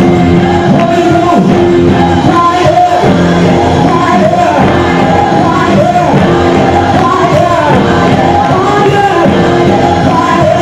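Live gospel praise band playing loud, with a lead singer and backing singers singing over guitars and drums.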